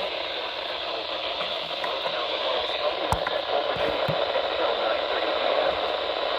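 Steady radio static hiss from a weather radio receiver between alert broadcasts, with a sharp click about three seconds in.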